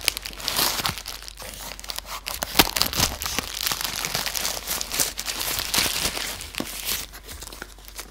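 Plastic mailer bag crinkling and tearing as it is slit and pulled open with a pocket knife, in irregular rustles and sharp crackles.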